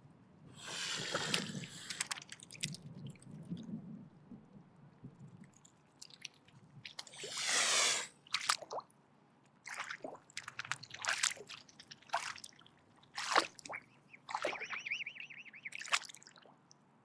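Mute swan hissing in defence. There are two long harsh hisses, one near the start and one about halfway, with short sharp clicks between them and a brief pitched call near the end.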